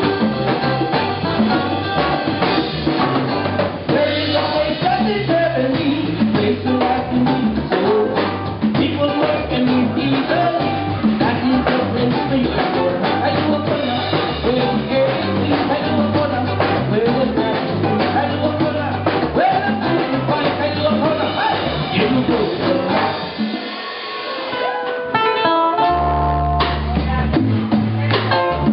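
Live band music: an acoustic-electric ukulele strummed over bass guitar and drum kit, with a man singing. About 23 seconds in the drums and bass drop out briefly, then come back with heavy bass notes under a picked ukulele line.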